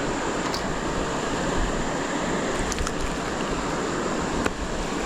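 Creek water rushing steadily, with a few faint sharp ticks over it.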